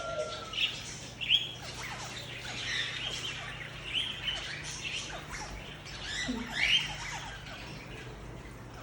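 Many small aviary birds chirping and calling over one another, with a short squawk now and then, over a faint low steady hum.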